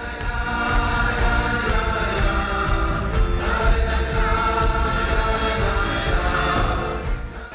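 Live concert music: a band with strong bass under many voices singing together in long held notes.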